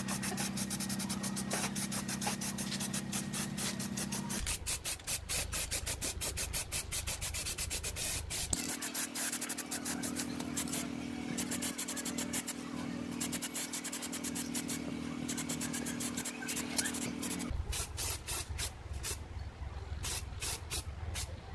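A dense run of scratchy clicks and rubbing noises, with an aerosol spray-paint can spraying in the middle section. Under it a low steady hum changes abruptly about 4, 8 and 17 seconds in.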